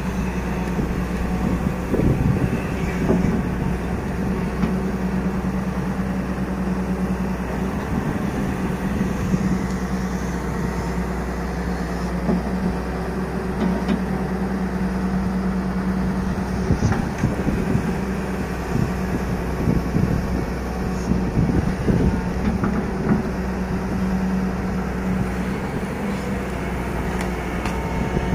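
Hyundai 210 crawler excavator's diesel engine running steadily with a constant hum while the machine works its boom and bucket. Scattered short knocks come through over it.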